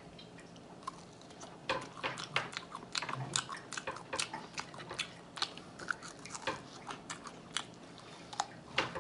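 Close-miked chewing and biting of chicken wings, meat being pulled off the bone: many irregular wet clicks that grow busier about a second and a half in.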